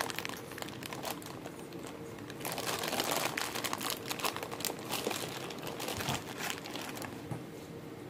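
Thin clear plastic bag crinkling and crackling as fingers pick at it and pull it open, in quick irregular bursts that are busiest a few seconds in and die away near the end. A faint steady hum runs underneath.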